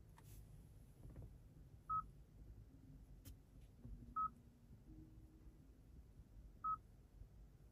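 Three short, high electronic beeps, a couple of seconds apart, over faint low hum with a few soft clicks.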